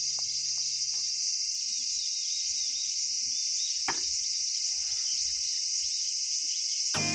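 Insects chirring steadily in a dense high-pitched band, with one sharp click about four seconds in.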